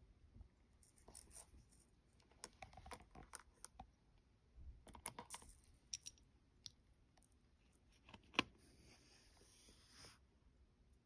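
Faint clicks and taps of a metal wristwatch with a fine-chain bracelet being handled and turned over on a dish, with one sharper click a little past eight seconds in, followed by a brief soft hiss.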